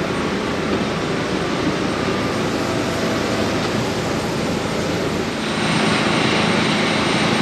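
Embraer 195 jet engine and airflow noise heard inside the cabin, steady, then stepping up to a louder, hissier level with a low hum about five and a half seconds in.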